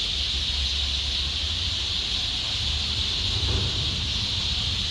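Outdoor garden ambience: a steady high-pitched hiss over a low rumble.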